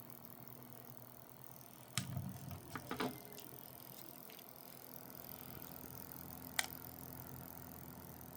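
Small home-built three-coil pulse motor, switched by a reed switch, running with a faint steady hum. A few sharp clicks and knocks come about two and three seconds in, and a single click near the end.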